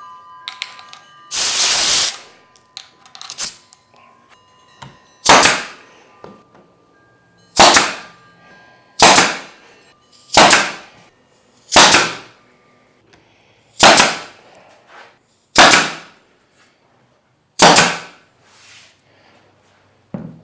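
Pneumatic stapler firing staples into a plywood backer panel, about nine sharp shots spaced a second and a half to two seconds apart, after a loud burst of noise about a second in.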